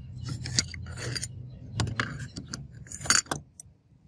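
Steel tools and small metal parts clinking and scraping against a steel bench vise as they are handled with pliers. There are irregular light clicks, with sharper clinks about half a second, two seconds and three seconds in.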